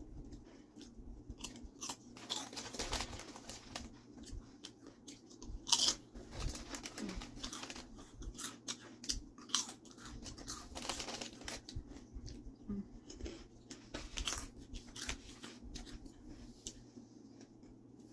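Close-miked eating: chewing with many sharp, crunchy clicks and crackles scattered irregularly throughout.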